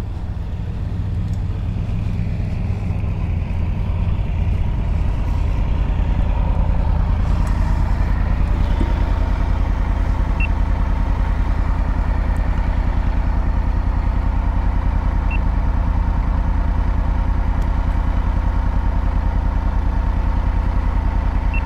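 Triumph Tiger motorcycle's three-cylinder engine idling in neutral, a steady low pulsing rumble that grows louder over the first several seconds and then holds level.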